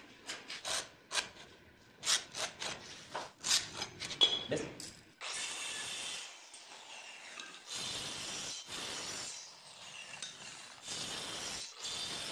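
Short scrapes and taps of marking out a plywood strip with a steel square. About five seconds in, a Stanley handheld electric cutter starts cutting through the plywood with a steady noise that eases briefly a few times.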